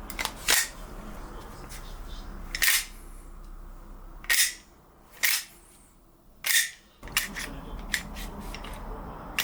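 GHK Umarex G17 gas blowback airsoft pistol firing five single shots at irregular intervals of one to two seconds, each a short sharp crack with a hiss of gas.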